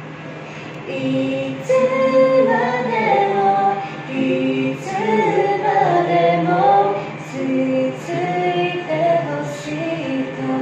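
A woman singing a slow melody with held and sliding notes, growing louder about a second in, over a steady low hum.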